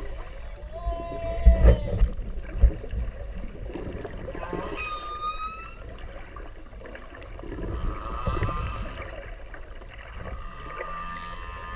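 Whale calls underwater: several separate pitched calls with harmonics. One is held and then falls about a second in, one rises and falls near the middle, and one wavers later on. A steady watery background runs underneath, with a few loud low thumps in the first three seconds.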